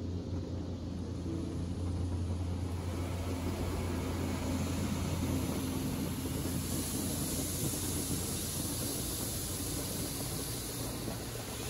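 Istobal in-bay automatic car wash running: a steady low hum under a hiss that grows louder about six seconds in.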